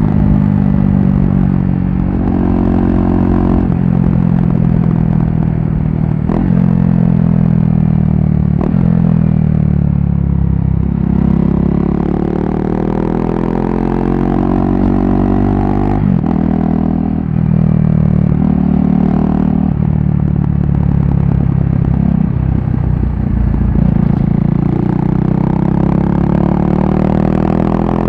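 KTM RC390's single-cylinder engine running loud through an aftermarket barrel exhaust with the dB killer removed, under way on the road. Its pitch climbs under throttle and drops back again and again as the gears change.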